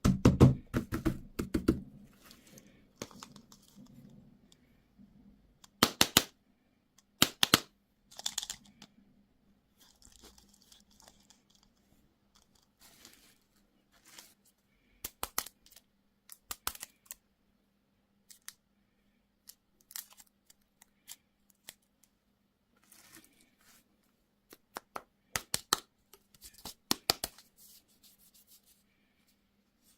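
Candy or toy packaging being torn open and crinkled by hand, in short crackly bursts. The loudest burst comes in the first two seconds, with further bursts at intervals and a cluster near the end.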